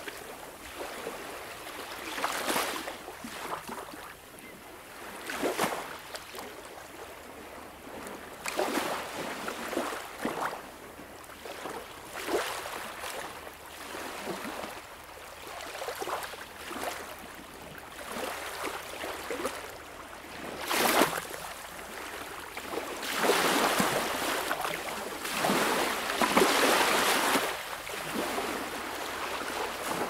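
Ocean surf breaking on a sandy beach: waves crash and wash up the shore in surges every two to three seconds, with a longer, louder wash of breaking waves about three-quarters of the way through.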